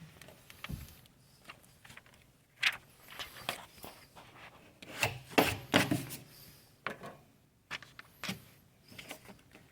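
Irregular rubbing and scraping strokes on a hard surface during vinyl lettering application, with a cluster of louder scuffs in the middle.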